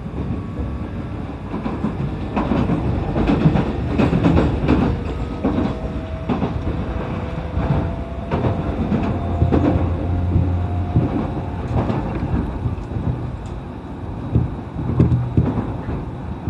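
E531 series electric commuter train running, heard from inside the passenger car: a constant rumble with wheels clacking over rail joints. A steady tone joins for several seconds midway.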